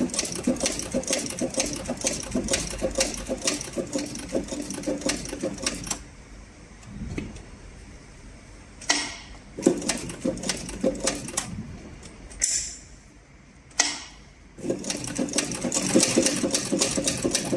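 CB4500 heavy-duty cylinder-arm leather sewing machine stitching through several layers of leather, its needle mechanism clacking at an even rhythm of roughly three stitches a second. It stops about six seconds in, gives a few single clicks and one short run of stitches during the pause, then resumes steady sewing about fifteen seconds in.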